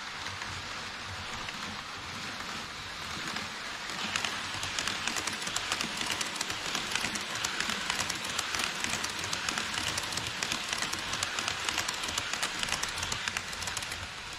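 HO-scale model E5-series Shinkansen train running past on sectional track: a steady rolling hiss, with rapid clicking of the wheels over the rail joints from about four seconds in, easing near the end as the train clears.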